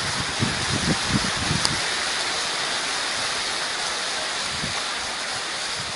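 Steady hiss of rain falling on standing floodwater, with a few faint low sounds in the first two seconds.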